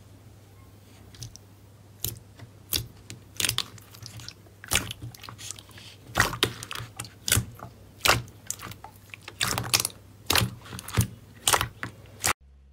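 Thick pink slime being pressed and kneaded by hand in a round plastic tub, giving an irregular run of sharp, wet squishy clicks and pops that start about two seconds in.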